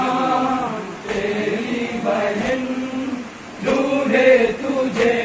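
A group of young men chanting a noha, a Shia mourning lament, unaccompanied into a microphone in slow sung phrases, the voices together. A light regular slap about every second and a quarter comes from hands beating chests in matam.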